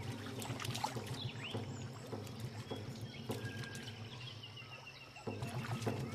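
Water splashing and sloshing in irregular splashes as two male platypuses grapple and thrash at the river surface in a territorial fight.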